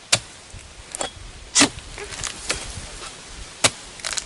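Sharp clicks and knocks, about six in four seconds, the loudest a little over a second and a half in, from a pole-mounted harvesting sickle being worked into an oil palm's crown and knocking against the frond bases.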